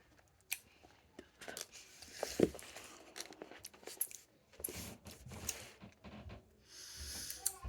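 Small handling sounds of wax Nik-L-Nip candy bottles being bitten, squeezed and crinkled: scattered crunches, clicks and rustles, with a longer rustle near the end.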